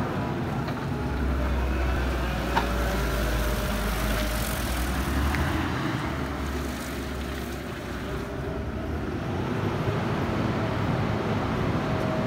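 Engine of a Linde H70T LPG forklift running as the truck drives and raises its forks, the engine note swelling and easing off, with a single click about two and a half seconds in.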